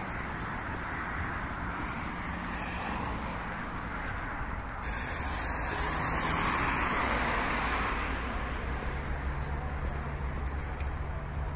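Road traffic passing on the street alongside: a steady rush of car noise that swells as a vehicle goes by about six to seven seconds in.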